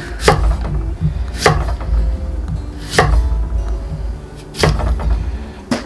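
Large kitchen knife slicing through an apple and striking a wooden cutting board: five sharp chops, about a second and a half apart.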